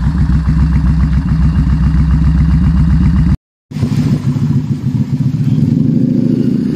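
Yamaha Bolt's air-cooled V-twin running through an aftermarket exhaust, a loud, evenly pulsing low exhaust note. It breaks off for a moment about three seconds in, then runs again, its pitch rising a little near the end.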